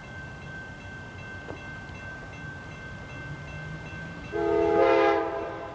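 Approaching passenger train sounding its air horn once, about four seconds in: a loud chord of several notes held for about a second, then fading. Before it, a low steady background rumble with a faint high ringing tone.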